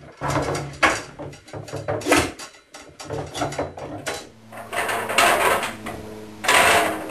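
Copper tubing being handled and bent into a coil inside a wooden box: an irregular run of knocks, clatters and scrapes as the pipe bumps against the wooden frame.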